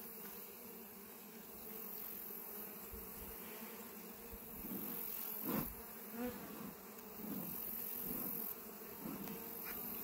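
Honey bees buzzing over an open hive, a steady faint hum, with one brief knock about five and a half seconds in.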